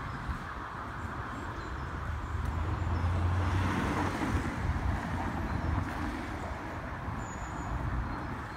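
Road traffic from a nearby street, a steady hum with one vehicle passing that grows louder about three seconds in and fades again.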